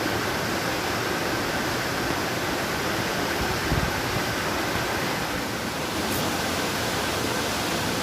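Waterfall rushing: a steady, even roar of falling water, with a brief low thump just before the middle.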